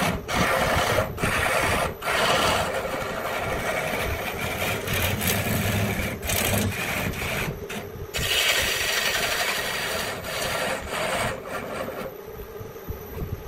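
Wood being rasped by hand, a tool scraping along the stick in repeated strokes, turning quieter and duller near the end.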